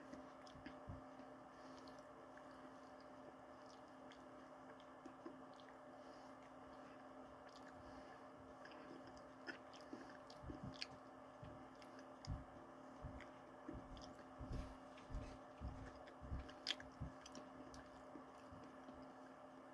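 Faint eating sounds: a spoon on a bowl and chewing of ice cream with cookie pieces. Scattered soft clicks and thumps come mostly in the second half, over a steady low hum.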